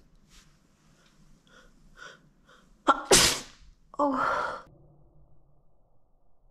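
A woman tickling her nose with a feather sneezes once, loudly and suddenly, about three seconds in, after a run of faint short catching breaths. A brief voiced breath follows about a second later.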